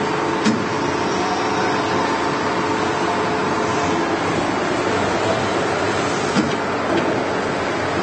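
1000 mm automatic knife grinding machine running: a steady mechanical noise with a motor hum, broken by two short knocks, about half a second in and again about six and a half seconds in.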